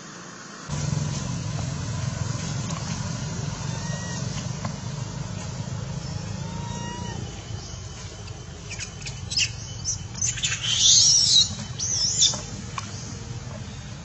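An animal's high-pitched squealing calls, bunched between about nine and twelve seconds in, over a steady low hum that starts just under a second in.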